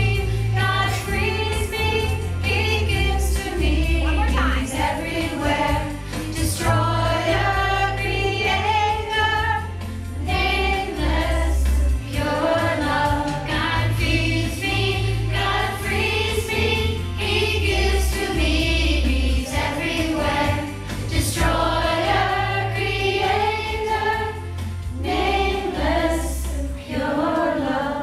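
Music with a choir of voices chanting a mantra over a bass line that changes about every two seconds, the accompaniment for Kundalini yoga Celestial Communication movements.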